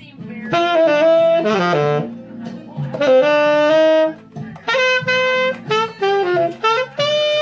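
Tenor saxophone (Selmer Reference) played with a bronze metal mouthpiece in a funky jazz style. It plays long held notes and then a run of short, quick notes near the end.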